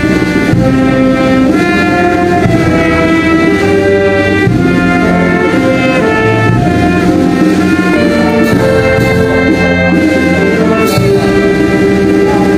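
A brass band plays a slow, solemn melody in held notes, several instruments sounding together.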